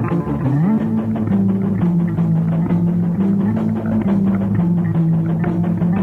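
Instrumental rock music from a band, with a guitar and drums. A low held melody line slides up about half a second in, then steps between long notes over steady drum hits.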